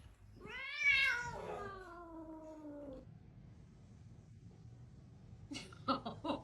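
A domestic cat giving one long, drawn-out meow that rises and then falls in pitch.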